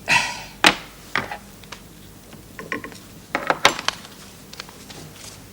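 Irregular small clicks, taps and short scrapes of objects being handled, bunched about three to four seconds in.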